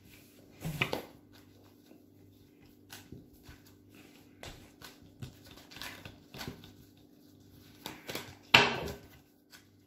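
Playing cards being handled and shuffled for a new round, heard as scattered light clicks and rustles over a low steady hum. Two brief louder sounds come about a second in and near the end.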